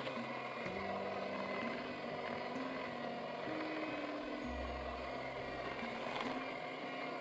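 Electric hand mixer running steadily, its beaters whipping butter cream while cooled custard base is added a spoonful at a time. Background music with a slowly changing bass line plays underneath.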